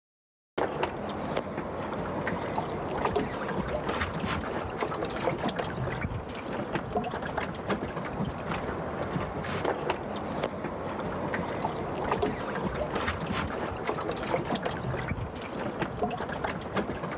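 About half a second of silence, then steady outdoor wind and water noise around a boat, with many small clicks and snips from cutting outdoor carpet and fastening it onto an aluminium dinghy.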